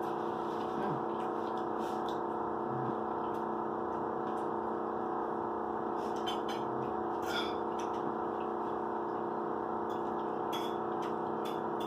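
Steady room hum with a few faint clicks and crunches of people eating, a cluster of them about halfway through and another near the end.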